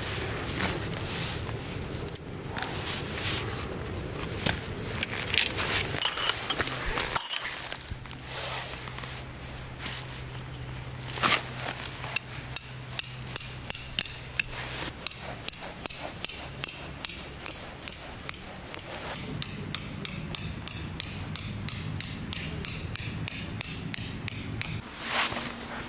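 Tent stakes being hammered into gravelly ground: one loud ringing metal clank about seven seconds in, then a long run of sharp, evenly spaced strikes, about two or three a second, through the second half.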